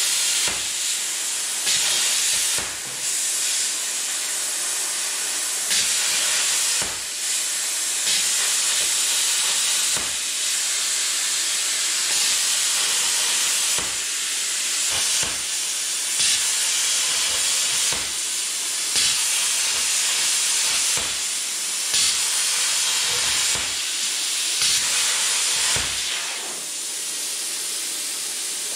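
Plasma cutter cutting slots in steel: a loud, steady hiss of the arc and air jet, broken by brief pauses with short sharp clicks as the cut stops and starts again. About 26 seconds in the cutting stops and a quieter hiss carries on.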